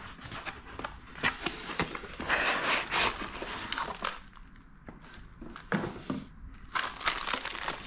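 Cardboard packaging being handled: box lids and inserts rustling, scraping and knocking as they are lifted out and set down, with a quieter stretch about halfway.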